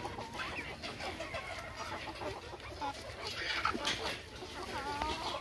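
A flock of desi chickens clucking, with many short calls overlapping and a few longer, wavering calls in the second half.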